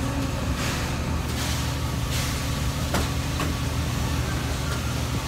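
Steady low mechanical hum, with a faint click about three seconds in.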